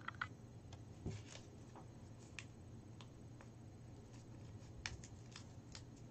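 Faint paper rustling and a few light ticks as a small paper slip is handled and folded by hand, over a low steady hum.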